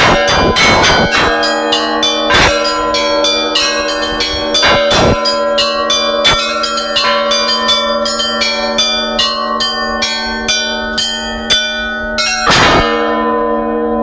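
Russian Orthodox church bells rung from a rope clavier: quick strokes on the small bells, about three a second, over the sustained ringing of the larger ones. A heavy stroke comes about twelve and a half seconds in, after which the small bells stop and the lower bells ring on.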